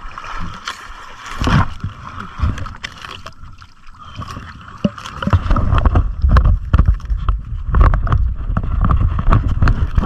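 Water sloshing and splashing with scattered knocks, and a heavy low rumble on the action camera's microphone that gets louder about halfway through.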